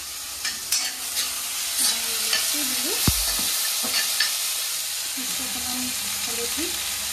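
Chopped onion and tomato sizzling in hot oil in a kadai, with a steel spoon stirring and scraping the pan in scattered metal clicks. One louder knock of the spoon against the pan about three seconds in.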